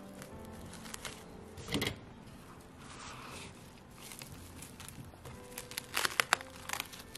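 Plastic cling film crinkling and crackling as hands fold it around a sandwich, with a sharp crinkle about two seconds in, a softer rustle around three seconds, and a quick run of crackles near the end.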